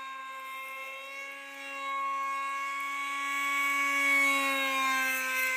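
Electric motor and propeller of an RCPowers F-18 v3 foam model jet in flight, a steady whine that grows louder from about two seconds in and is loudest around four seconds in.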